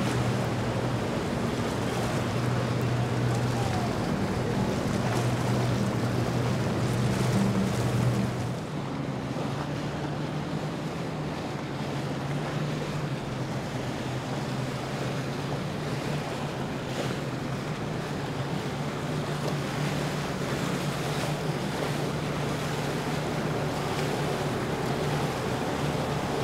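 Motorboat engines running steadily over water wash and wind noise on the microphone. About eight seconds in, the engine note drops a little and shifts in pitch.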